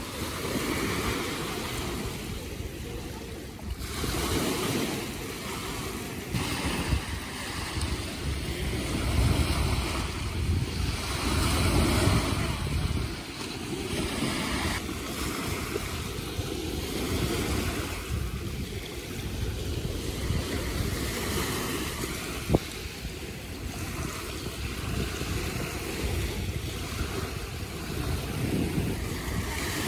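Waves washing onto a beach, with wind buffeting the microphone in gusts, heaviest about a third of the way in. One short sharp click about three-quarters through.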